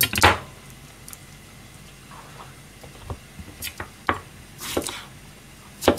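Kitchen knife cutting an eggplant on a plastic cutting board: scattered, irregular knife strokes knocking on the board, the loudest about a quarter-second in and near the end, with softer ticks between.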